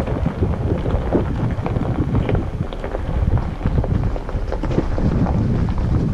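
Jeep Wrangler Unlimited rolling slowly down a rocky gravel road: a steady low rumble of tyres and suspension with wind buffeting the microphone, dotted with frequent crunches and pops of stones under the tyres.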